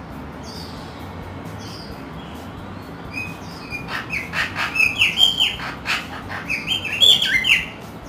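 Pet parrot chirping: a few faint high chirps at first, then from about three seconds in a quick run of short calls that rise and fall in pitch, loudest near the end.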